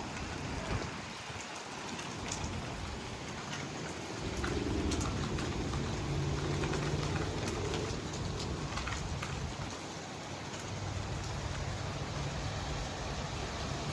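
Rain falling steadily as a thunderstorm passes, with scattered sharp drop hits on a nearby surface. A low rumble swells about four seconds in and fades away by about nine seconds.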